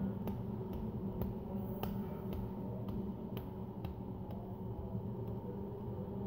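A hand slapping a cheek over and over, about two light slaps a second, the slaps getting fainter after about three seconds, over a steady low background hum.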